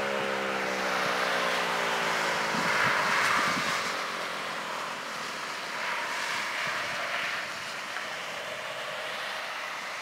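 Federal Signal 2001-SRNB electromechanical warning siren winding down at the end of its monthly test. Its pitch falls slowly and fades out over the first few seconds, leaving a steady rush of wind on the microphone.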